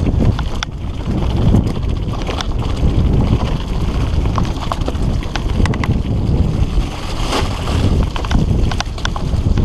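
Wind rumble on a helmet-mounted camera's microphone and tyres running over dirt on a fast mountain-bike descent, with scattered rattles and knocks from a fully rigid Redline Monocog singlespeed bouncing over rough trail.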